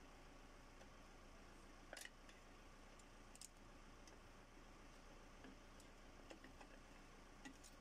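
Near silence broken by a few faint metallic clicks, with a brief scrape about two seconds in, as a Toyota Fortuner's rear drum-brake shoe and its hardware are worked free of the backing plate.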